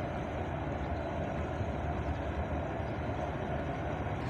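Steady low engine rumble of a large ship running alongside the quay, an even hum with no change in speed.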